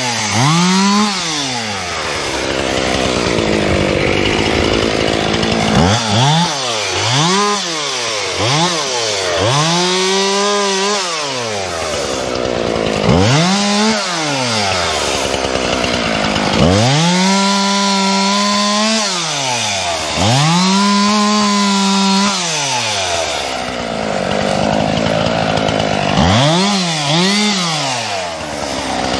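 Two-stroke chainsaw running, its engine revved up to full throttle and let back down again and again, with stretches of cutting through wood under load where the pitch sags and wavers.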